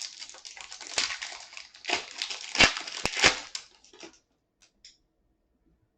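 Wrapper of a Topps Chrome trading-card pack being torn open and crinkled: a run of crackling with several sharper crinkles, stopping about four seconds in.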